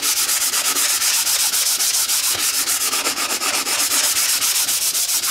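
Foam sanding block rubbed rapidly back and forth by hand over a brown-paper-covered model aircraft wing sealed with car primer, making a steady scratchy hiss. The sanding is knocking down the raised paper fibres that make the primed surface rough. The sound stops abruptly near the end.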